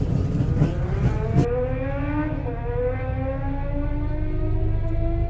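Car engine at full throttle on a quarter-mile drag run, its pitch climbing steadily through the gears and dropping briefly at a gear change.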